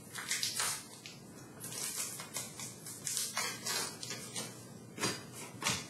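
Wrapper of a trading card pack crinkling and tearing as it is opened, then the cards rustling as they are handled. The sound comes as a series of short, uneven papery crackles.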